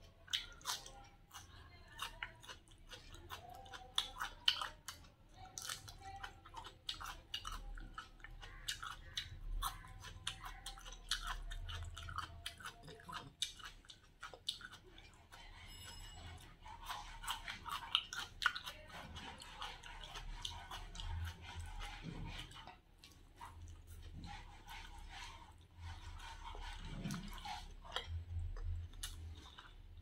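Close-miked eating of chicken shawarma: chewing and biting, with many wet mouth clicks and some crunchy bites, irregular throughout.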